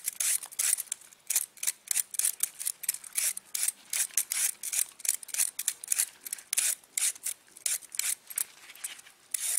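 Handheld vegetable peeler scraping strips off a red carrot in quick repeated strokes, about three a second, each a short rasp.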